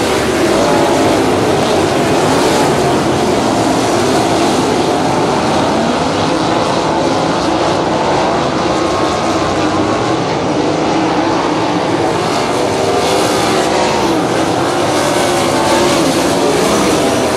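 A field of 360 non-wing sprint cars racing on a dirt oval: several V8 engines running hard at once, a loud, steady mix of overlapping engine notes whose pitches waver up and down as the cars pass.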